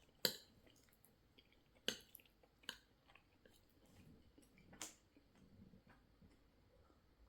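Faint chewing of four-cheese macaroni pasta, with four short sharp clicks.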